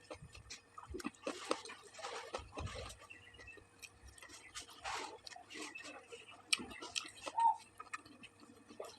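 A person eating and chewing food, with irregular wet mouth clicks and smacks.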